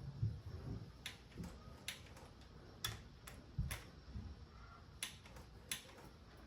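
Sharp single clicks from a wrench as the triple-clamp pinch bolts are tightened, spaced irregularly a third of a second to a second apart, over low knocks of tool handling.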